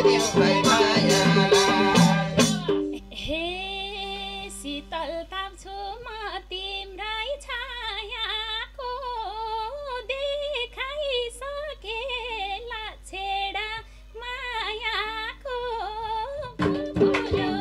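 Nepali dohori folk band of madal hand drums, bamboo flute and harmonium with singing; about three seconds in, the drums drop out and a woman sings a slow, heavily ornamented solo line over a held harmonium drone. Near the end the madal drums and the band come back in.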